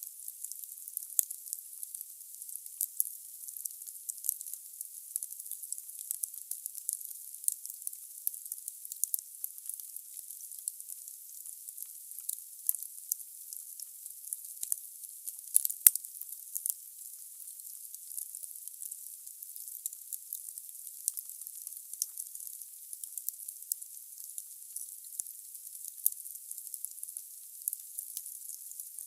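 Wood fire burning in a fireplace: logs crackling with frequent sharp pops over a steady high hiss, one pop louder than the rest about halfway through.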